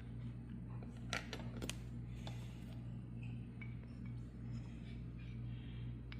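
A steady low hum with a few light clicks and clinks of kitchenware being handled, a second or two in.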